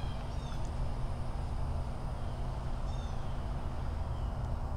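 Outdoor ambience: a steady low rumble with a few faint, brief, high chirps from small birds, around half a second in and again near three seconds.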